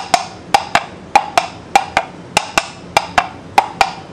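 Two coconut shell halves clopped to imitate a horse's hooves: sharp knocks in pairs, about two pairs a second, in a steady rhythm, each knock with a short ring.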